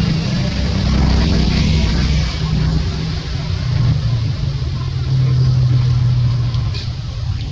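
A loud, low rumbling drone with a steady hum, swelling about five seconds in and easing near the end.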